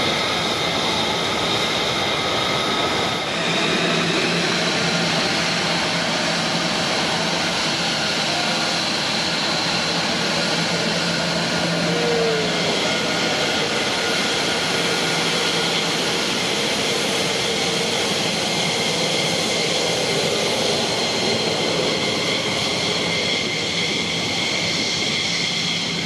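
Fighter jet engines at low taxi power, an F-35 among them: a steady high-pitched whine over a broad roar that holds at one level.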